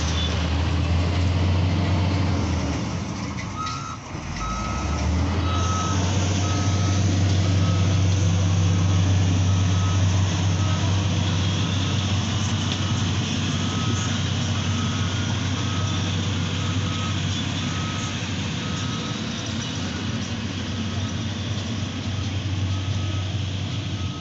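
Heavy construction vehicle's engine running steadily while its reversing alarm beeps, about one and a half beeps a second, starting a few seconds in.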